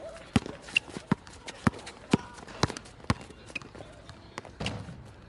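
Basketball dribbled on an outdoor court surface, bouncing about twice a second, with a short noisy burst near the end.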